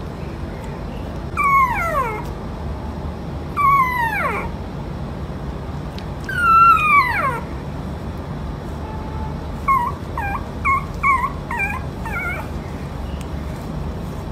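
A puppy whimpering and howling: three long, high cries that each fall steeply in pitch, then a quick string of short, high yips near the end.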